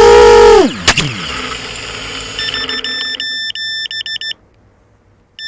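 ImmersionRC Vortex racing quadcopter's motors and 5-inch props whining steadily, then spinning down with a steep fall in pitch as it lands and is disarmed, with a knock on touchdown. Then rapid, repeated high electronic beeping in short patterned runs, stopping and starting again near the end.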